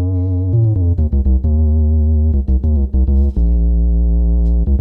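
Moog Werkstatt-01 analog synthesizer playing a bass line, its VCA shaped only by an external envelope generator with nothing patched into the gate. Low notes change pitch several times, each starting with a sharp click.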